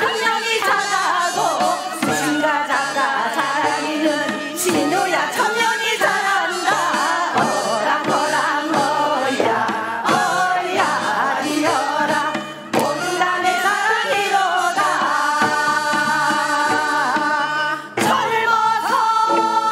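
A group of women singing a Gangwon-do folk song (minyo) with musical accompaniment.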